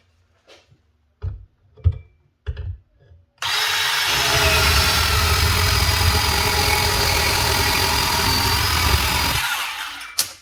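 A few separate knocks, then a DeWalt DCS370 18V cordless bandsaw runs steadily through a cut for about six seconds and winds down as the cut finishes, with a click near the end.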